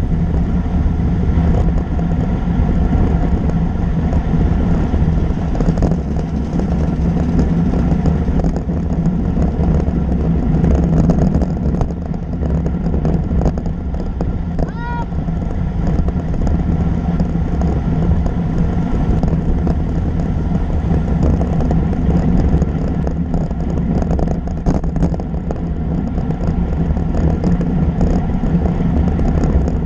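Steady wind rush and tyre-on-asphalt noise from a road bicycle riding at speed, picked up by a camera mounted on the bike. A brief high tone sounds about halfway through.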